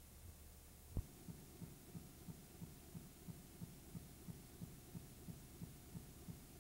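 Near silence on a dead audio track: a faint steady hum, a click about a second in, then faint low thumps repeating evenly about three times a second.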